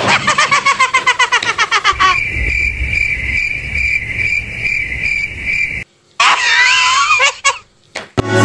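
A person laughing in quick repeated bursts, then a steady high tone for a few seconds, and a short wavering voice sound near the end.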